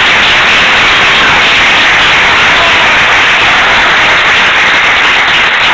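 Audience applauding loudly and steadily, a dense clatter of many hands clapping at once.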